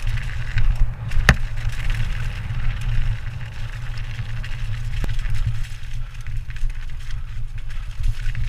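Mountain bike rolling down a rough dirt trail, heard through a bike-mounted camera: a steady low rumble of wind and vibration with tyre noise over dirt and snow, and a sharp knock about a second in and a fainter one about five seconds in.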